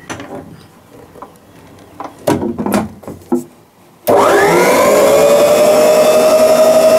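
A few clicks and knocks of handling, then about four seconds in a stand mixer's motor switches on, its whine rising as it spins up and settling into a steady run as it whips heavy cream for churning butter.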